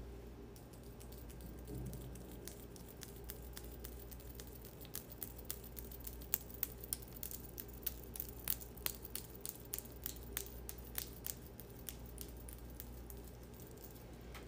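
Hand sounds close to the microphone: a fast, irregular run of sharp little clicks and crinkles that thickens and grows louder through the middle, then thins out near the end, over a low steady hum.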